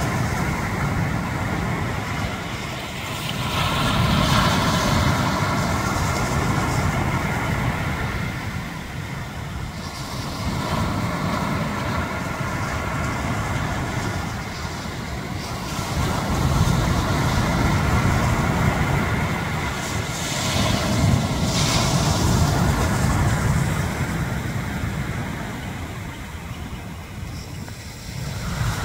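Ocean surf breaking and washing up a sandy beach: a steady roar that swells and eases every several seconds as waves come in.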